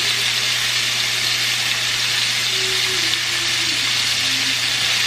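Chicken thighs frying in hot oil in a skillet: a steady sizzle.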